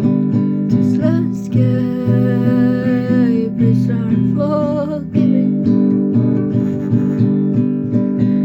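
Acoustic guitar strumming chords steadily, with a wordless voice sounding over it for a couple of seconds near the start and again briefly in the middle.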